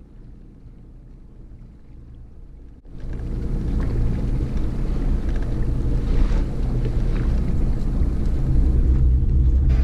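Small outboard kicker motor running steadily at trolling speed, a low hum at first; about three seconds in, loud wind rumble on the microphone comes in over it and stays.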